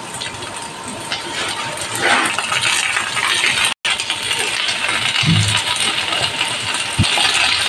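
Chicken strips, green capsicum and onion sizzling steadily in a hot oiled pan as sauce is poured in, with light clinks of utensils against the pan. The sound drops out for an instant a little before the midpoint.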